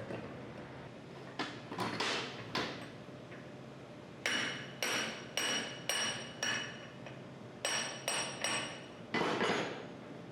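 Hammer tapping on steel pump parts: about a dozen sharp, ringing metallic strikes in uneven groups, some in quick pairs, most likely seating the drive gear during reassembly of a hydraulic gear pump.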